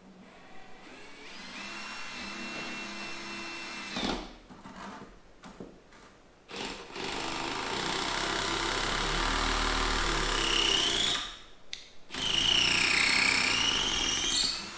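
Milwaukee Surge hydraulic impact driver running on its number 2 speed setting, three runs with short pauses between: a super quiet whir whose pitch shifts near the end of the later runs.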